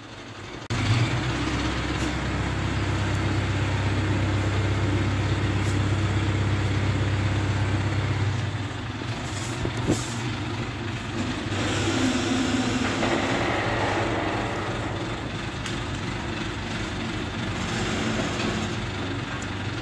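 Diesel engine of a Hydra pick-and-carry crane running under load as it lowers a tipper's hydraulic jack. A steady low drone starts about a second in, stays strong for about eight seconds, then drops back to a lower, more uneven running sound with a few knocks.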